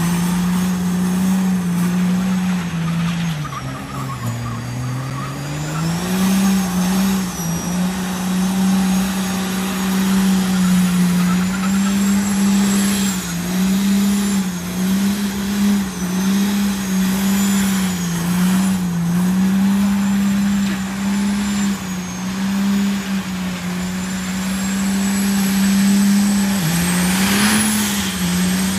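Diesel truck doing a burnout: the engine is held at high revs at a near-steady pitch over the hiss of spinning tyres. The pitch sags deeply about four seconds in and dips briefly a few more times.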